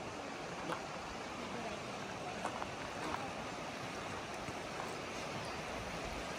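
Steady rush of flowing stream water, with a few faint short ticks over it in the first half.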